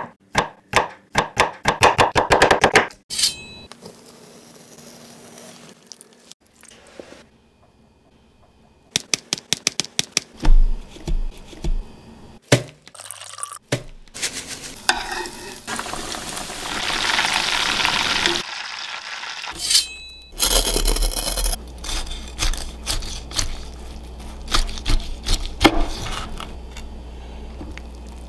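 A run of close-up food-preparation sounds: a fork stabbing a raw chicken breast on a wooden cutting board many times in quick succession, then scattered taps, scrapes and handling noises. Midway a steady hiss of hot oil sizzling runs for a few seconds.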